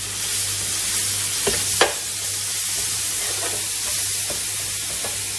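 Grated garlic sizzling in hot oil in an aluminium pot, a steady frying hiss, with two short taps about a second and a half in.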